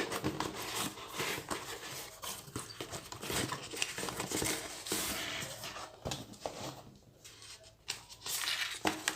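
A delivery package being torn open and handled: irregular rustling, crinkling and tearing with many small clicks and taps.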